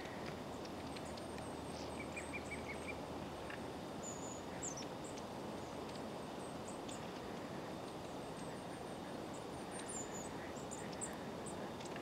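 Long-tailed tits giving thin, very high-pitched short calls, scattered throughout, over a steady hiss of forest ambience. About two seconds in, a quick run of about six lower notes.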